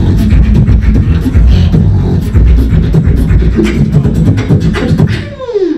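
Beatboxing into a handheld microphone: a dense, steady rhythm of deep bass kicks with quick clicking snare and hi-hat sounds, finishing with a falling vocal sweep near the end.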